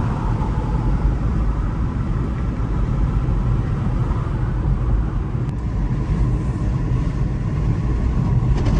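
A car driving along, its engine and tyres making a steady low rumble of road noise.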